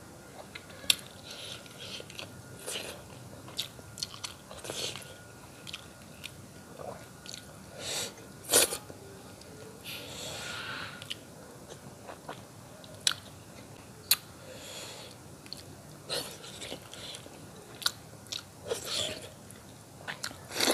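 Close mouth sounds of a person eating fish-head curry and rice by hand: chewing, wet lip smacks and clicks as meat is sucked off the bones, at an irregular pace, with a longer sucking hiss about ten seconds in.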